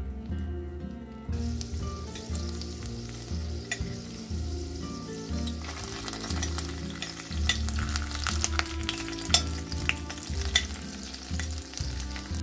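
Garlic cloves frying in oil in a glass pot, sizzling, the sizzle growing stronger about six seconds in. A metal spoon clinks a few times against the glass as the cloves are turned.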